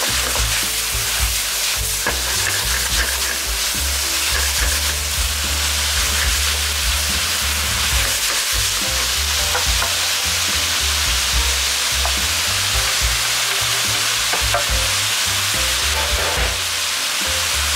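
Sliced pork, squid and vegetables sizzling steadily in a hot frying pan while being stirred and turned with chopsticks, with small scraping ticks of the chopsticks against the pan.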